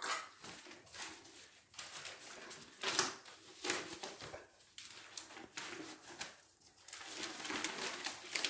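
A Labrador dosed with apomorphine to make it vomit, head down over its vomit on newspaper, making irregular wet mouth and throat noises in short uneven bursts.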